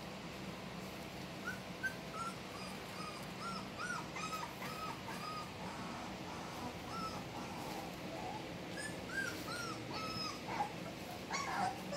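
20-day-old border collie puppies whimpering and squeaking as they play, a string of short high squeals in quick succession, with a lull in the middle before a fresh flurry near the end.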